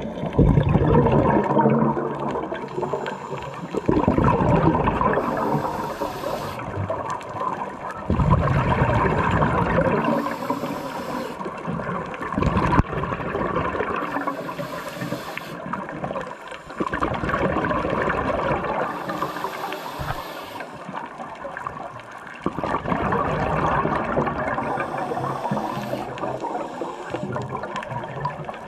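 Scuba diver breathing through a regulator underwater: a short, high hiss on each inhale alternates with a longer rush of exhaled bubbles, about five breaths in all.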